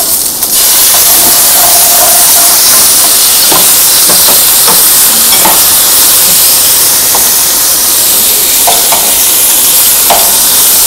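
Sauce poured into a hot pan of stir-fried vegetables sizzles up loudly about half a second in and keeps sizzling steadily, with a few short taps and scrapes of a metal spatula against the pan.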